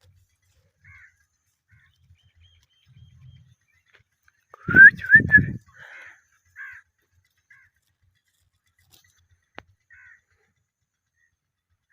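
Indian ringneck parrot giving short, scattered chirps, with a loud burst of harsh calls about five seconds in.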